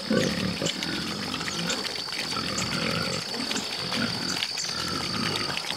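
A litter of young piglets grunting and chewing as they eat feed pellets off the ground, with many quick crunching clicks among the grunts.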